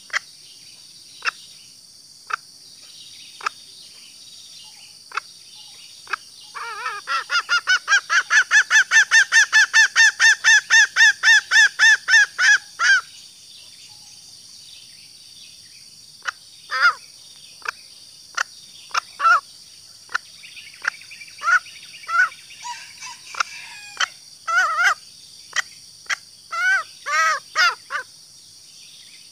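Green junglefowl hen calling: a few scattered single clucks, then a fast even run of about four clucks a second for some six seconds, then irregular clucks and short clusters. A steady high insect drone runs underneath.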